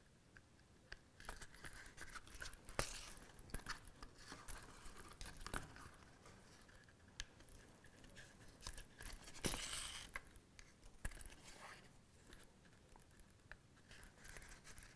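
Faint sounds of hand saddle-stitching leather: needles pushed through the stitching holes and thread drawn snug through the leather as short rasps, among small clicks and rustles of the handled case. The longest and loudest pull comes about nine and a half seconds in.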